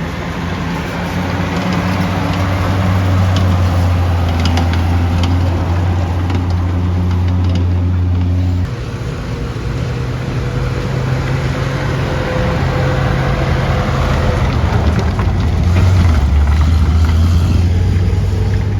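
A large vehicle engine running with a loud, steady low drone. The drone changes abruptly about nine seconds in and grows louder again near the end.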